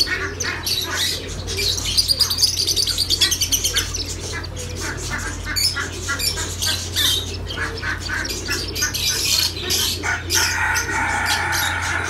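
Caged birds chirping and squawking in a dense, rapid chatter of short high calls, with a harsher, lower squawk near the end. A steady low hum runs underneath.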